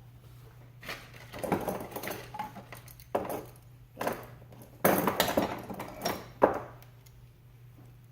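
Snap ring pliers and metal parts of an AC compressor pulley clinking and scraping in a series of short irregular knocks, over a faint steady hum.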